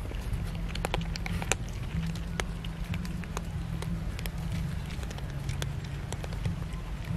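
Several cats crunching dry kibble: irregular sharp crunches and clicks, over a steady low hum.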